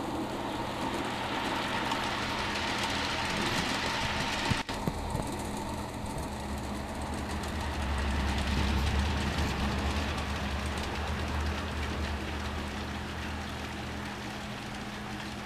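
G-scale model freight train rolling along garden railway track: the locomotives' motors and the cars' wheels on the rails make a steady running noise, with a low hum that swells about halfway through.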